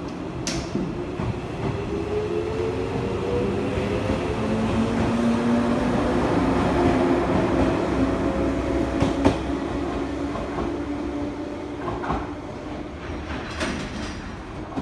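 115-series electric multiple unit pulling out and accelerating past, its traction motors whining steadily higher in pitch. The sound swells as the cars pass, with a few sharp clicks from the wheels, then fades as the train draws away.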